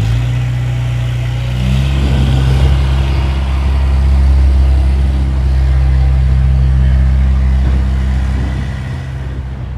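Tractor engine running with a deep, steady note. It steps up and grows louder about two seconds in, then fades away near the end.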